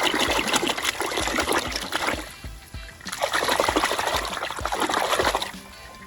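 Water splashing in two bursts of a couple of seconds each as toys are washed, over background music with a steady beat of about two thumps a second.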